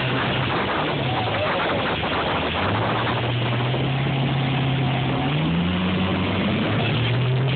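Motorboat engine running under a steady rushing noise; its pitch climbs about five and a half seconds in, then settles back.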